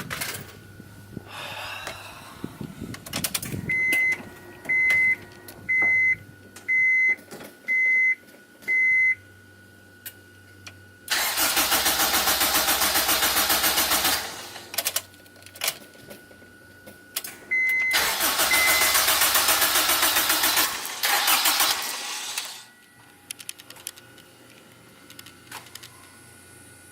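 Turbocharged Acura RSX's starter cranking the engine in two bursts of a few seconds each, the engine turning over rhythmically without catching: a no-start. Before the cranking a high beeping chime sounds six times, about a second apart.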